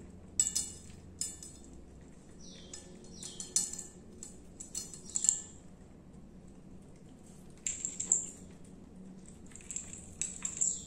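Small bell charm on a cat's collar jingling in light clinks, several times, as the cat moves its head over its plate, with quieter wet licking and chewing of canned cat food late on.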